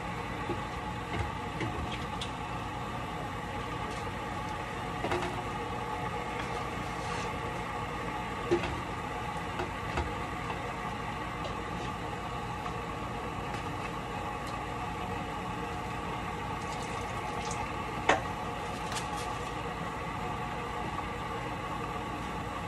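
A steady mechanical hum with several tones in it, with a few light knocks and clicks on top. The sharpest knocks come about 8 seconds and 18 seconds in.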